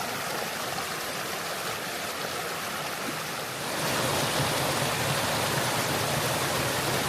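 Mountain stream flowing steadily over rocks; the water sound grows louder about three and a half seconds in.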